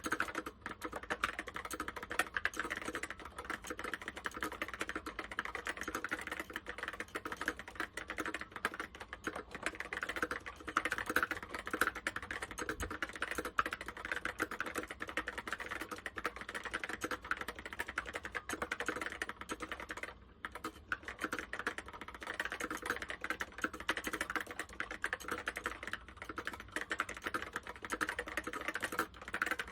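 Continuous fast typing on an Apple M0110 keyboard with Alps SKCC Tall Cream switches: a dense run of key clicks, easing briefly about twenty seconds in.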